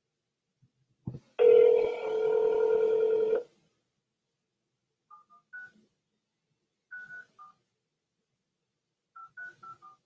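Telephone line: a click, then a steady telephone tone for about two seconds, then touch-tone keypad beeps in three quick groups of three, three and four, a ten-digit phone number being dialed.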